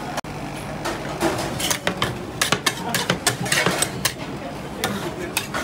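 Two flat metal spatulas chopping and scraping ice cream on a steel cold plate for rolled ice cream: quick, irregular clacks and taps of steel on steel starting about a second in, over a steady low hum.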